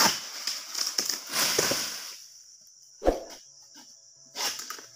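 An egrek, a long-pole harvesting sickle, cutting at an oil palm crown, with fronds rustling for about two seconds. About three seconds in there is a single heavy thud as cut material hits the ground.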